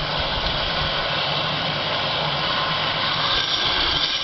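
Hose spray nozzle hissing steadily as a jet of water sprays onto a load of incinerated chips in a cement mixer drum.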